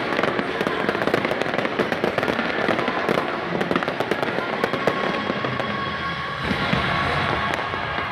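Fireworks going off overhead in a dense run of rapid sharp pops and crackles. The pops thin out about six and a half seconds in.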